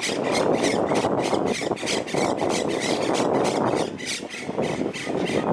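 Monk parakeets giving rapid, harsh chattering calls, several notes a second, over a steady rushing background noise that eases about four seconds in.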